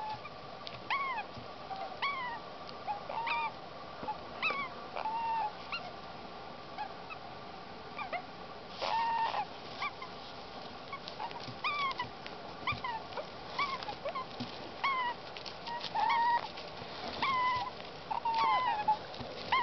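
Baby Indian ringneck parakeets calling with short, kitten-like cries, each rising and falling in pitch, repeated about once a second, one longer and louder about nine seconds in.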